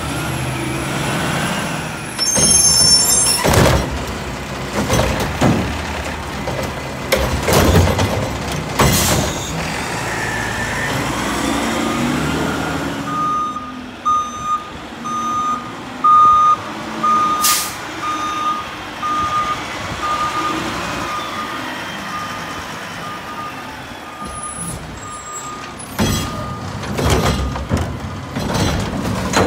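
Mack LR garbage truck with a Curotto-Can arm working: diesel engine running with banging and clatter from the arm and cart, then the truck's reversing alarm beeping steadily at one pitch for about thirteen seconds, and more clatter near the end as the arm lifts the next cart.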